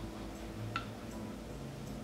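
A single light click about three-quarters of a second in, over a low steady hum.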